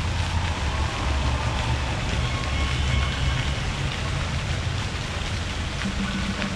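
Steady rushing outdoor noise with a heavy low rumble that swells and eases, and faint distant tones above it.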